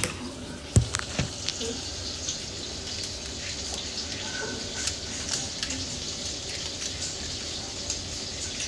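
Steady sizzle with scattered small crackles from burger patties frying low and slow on a griddle, with a sharp knock about a second in and a few light handling clicks.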